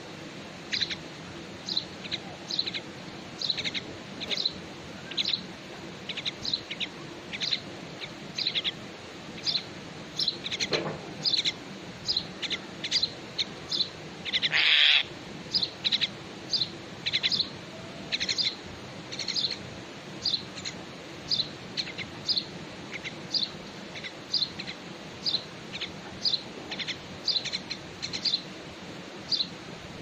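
Common mynas calling at a nest with chicks: short, high chirps repeated steadily, one or two a second, with a louder, longer, harsher call about halfway through.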